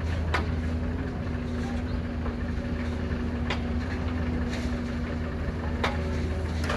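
Heavy diesel engine of a Doosan excavator running steadily under work, a constant low hum. A few sharp knocks and clatter of rock and dirt sound as the bucket loads and digs.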